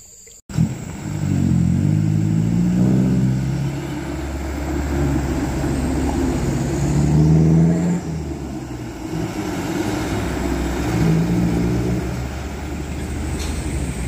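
Light dump truck's diesel engine running as the truck drives off, its pitch rising and falling as it revs. It starts suddenly about half a second in.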